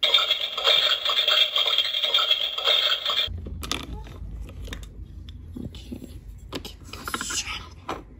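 Toy play-kitchen stove's electronic cooking sound effect playing from its small speaker after the burner knob is turned, cutting off abruptly about three seconds in. After that, light clicks and scraping of a plastic spatula and lid against a plastic toy frying pan.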